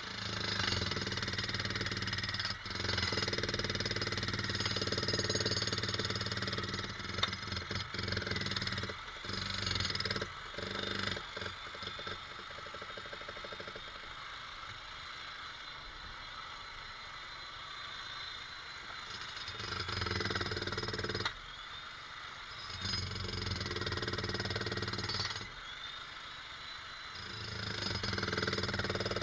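Jackhammer hammering in runs of a few seconds, stopping and starting several times. A quieter steady mechanical sound carries on in the pauses between runs.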